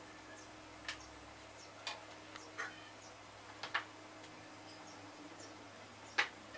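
Serving spoon clinking against a ceramic plate and a pot while dishing up rice: a few light, separate taps roughly a second apart, with the sharpest clink near the end.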